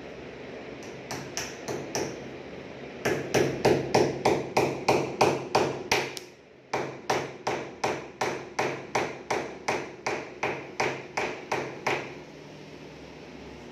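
Hammer tapping a nail into PVC wall panelling. A few light taps come first, then quick, even blows about three a second, with a brief pause around the middle, until the hammering stops shortly before the end.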